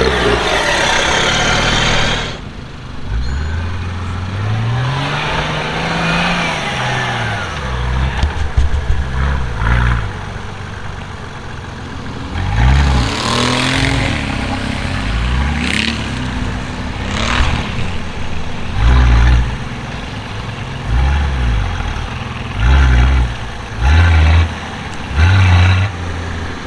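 Off-road 4x4 engine revving up and falling back several times, then a series of short, sharp throttle blips in the last third.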